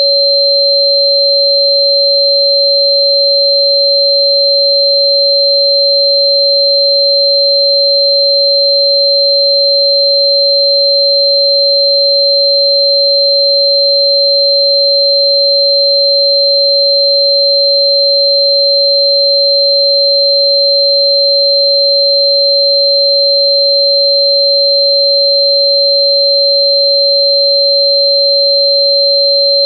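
Electronically generated pure sine tones held dead steady and loud: a mid-pitched tone at about 559 Hz, the frequency given for Chuan Bei Mu (Sichuan fritillary bulb), with a thinner high-pitched tone above it.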